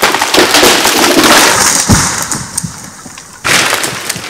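A chopped dead tree falling: a loud run of cracking and splintering as the trunk breaks and the crown tears through branches, then a second crash about three and a half seconds in as it hits the ground.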